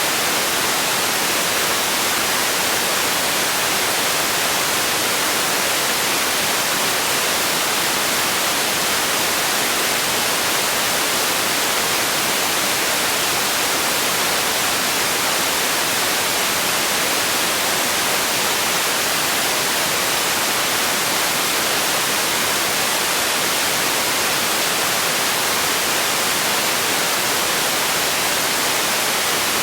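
Steady, unchanging hiss of generated white noise, brightest in the high range.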